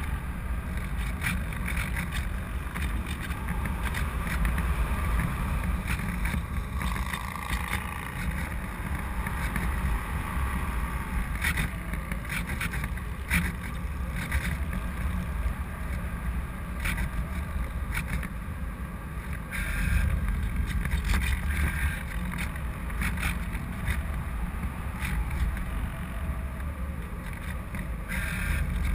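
Wind rushing over the onboard camera of a Parkzone Radian Pro RC glider in flight: a steady low rumble with scattered short clicks.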